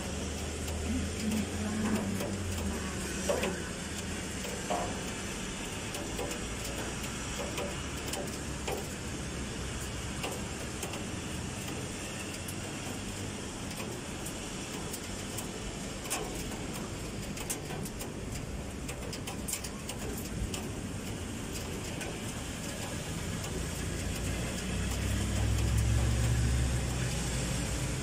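Steady rain during a typhoon with city traffic on wet roads below. A low vehicle engine rumble swells near the end.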